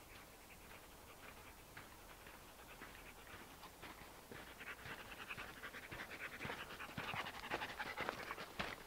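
A dog panting in quick rhythmic breaths, faint at first and growing louder over the second half.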